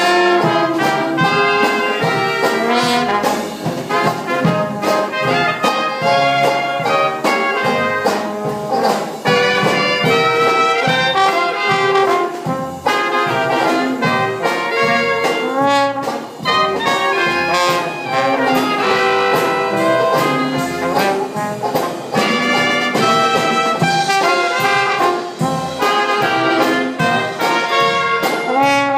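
Live Dixieland jazz band playing an instrumental: trombone and trumpet lead, with saxophones and drums keeping a steady beat.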